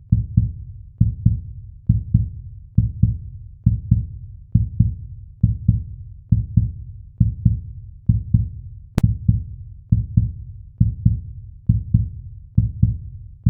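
Outro beat of low, deep double thumps, like a heartbeat, repeating evenly a little faster than once a second. One sharp click about two-thirds of the way through.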